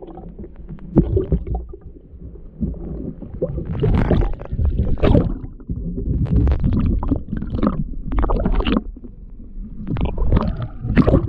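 Muffled rumbling and gurgling of moving water heard through a GoPro's underwater housing, coming in uneven surges.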